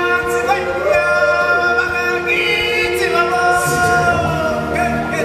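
A choir of stage-show singers holding long, sustained notes in chorus over music, the pitch stepping between notes.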